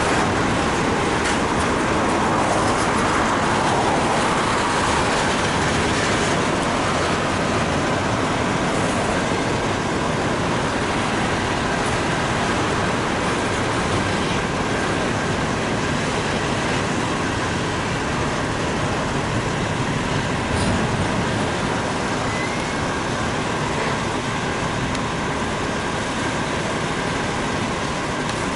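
Double-stack intermodal freight cars rolling past: a steady rumble of steel wheels on rail, with faint steady high tones over it.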